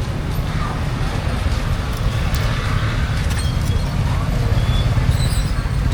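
Busy street-market ambience: a steady low traffic rumble with background chatter and a few faint clicks.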